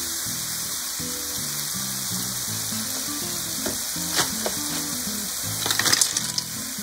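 Sauce sizzling and bubbling in a stainless wok as a wooden spatula stirs it. About five and a half seconds in, the cooked Manila clams are tipped back in, their shells clattering into the pan in a quick run of sharp knocks.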